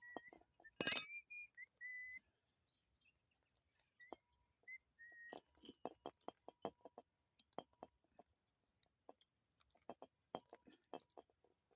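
Faint scattered clicks and clinks, like small parts being handled, with a few short high whistle-like notes in the first two seconds and again around four to five seconds in.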